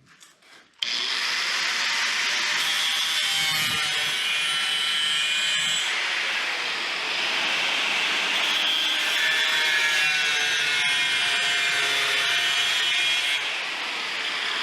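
Power tool cutting or grinding metal under load, with a steady harsh whine that starts abruptly about a second in and eases slightly near the end.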